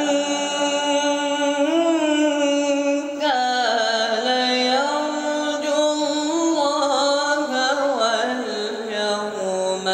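A teenage male qari recites the Quran in melodic tilawah style into a microphone, in his changed adolescent voice. He draws out long held notes with ornamented turns in pitch, then takes a short breath about three seconds in and starts a new phrase.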